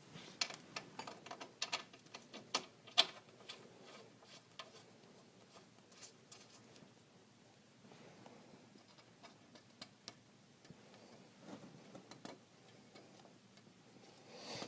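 Light, irregular metal clicks and taps from the pinch-bolt hardware (bolt, lock washer and nut) being handled and fitted on a ball joint. They come quickly for the first few seconds, then only now and then.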